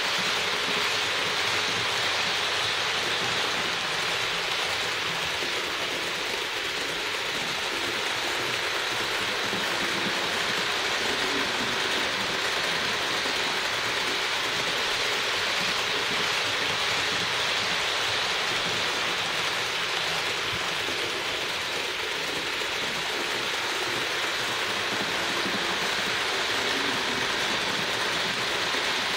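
Roco HO-scale ÖBB 1044 model locomotive and its coaches running laps on the track: a steady whirring rush from the small electric motor and the metal wheels rolling on the rails.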